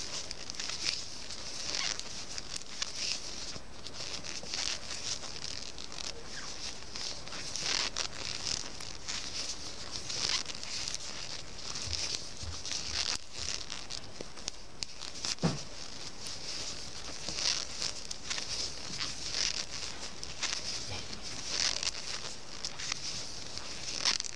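Hand knitting on circular needles: soft scratchy rustles of wool yarn and needle tips as stitches are purled, coming at an uneven pace of about one every second or two. One short falling squeak about halfway through.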